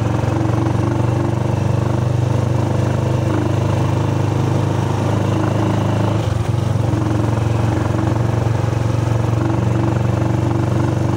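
A vehicle engine running steadily with a low, even hum, heard while riding aboard the vehicle.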